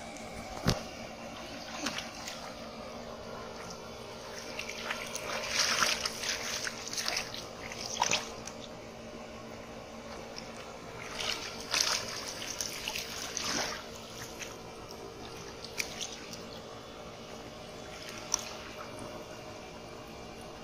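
Hands splashing and sloshing in shallow muddy water while groping for fish, in two longer spells with a few single sharp splashes between, over a faint steady hum.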